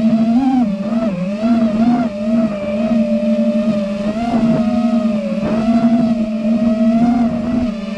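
6S FPV quadcopter's brushless motors and propellers buzzing steadily in flight, the pitch wavering slightly up and down.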